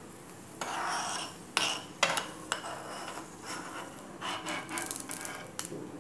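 Steel spoon scraping and clinking against a small pan while stirring cashews frying in ghee: a scrape about half a second in, a few sharp clinks around two seconds in, and a run of quick scrapes and taps near the end.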